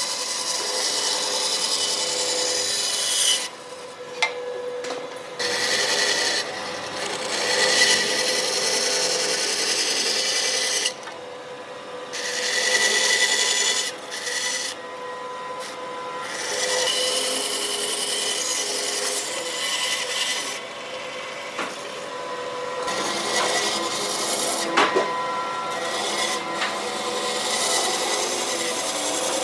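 An abrasive tool working wood, making a rough, steady scraping hiss with a faint hum. It stops briefly several times and starts again.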